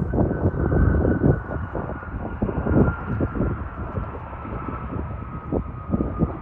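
Airbus A350-900 jet engines (Rolls-Royce Trent XWB) heard from a distance as the airliner rolls out after landing: a high whine that slowly falls in pitch, over an uneven low rumble.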